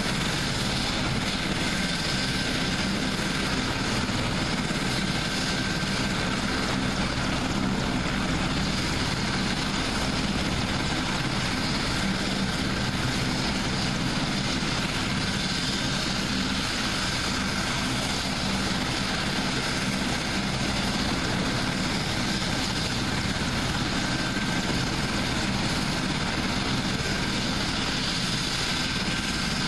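AgustaWestland HH-101 Caesar helicopter running on the ground with its main rotor turning: the steady noise of its three turbine engines and rotor, with a faint high whine over it.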